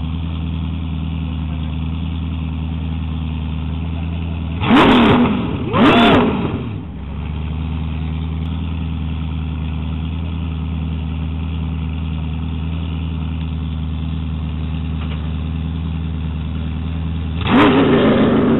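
Hummer H3 Dakar rally truck's engine idling steadily, blipped twice about five and six seconds in. Near the end it revs hard as the truck pulls away from the start, its wheels spinning in the sand.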